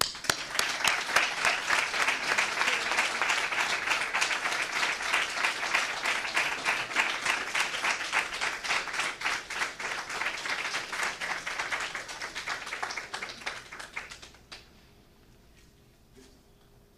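Audience applauding: many people clapping at once, which thins out and stops about fourteen seconds in.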